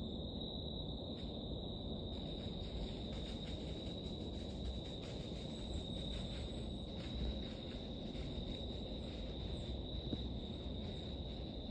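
Insects, likely crickets, trilling steadily on one high pitch over a low, steady rumble.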